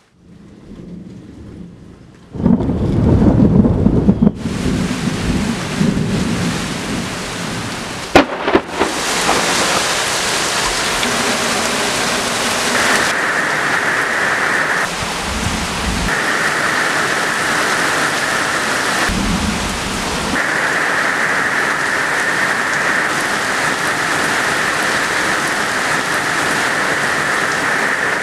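Thunderstorm. Soft rain at first, then a low rumble of thunder a little over two seconds in and a sharp crack of thunder around eight seconds. After that, a steady heavy downpour.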